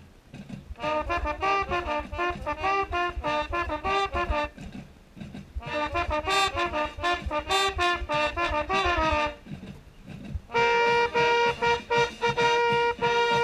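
Mellophone played close to the microphone: two phrases of quick short notes a few seconds long with a short break between, then near the end one note repeated in short pulses.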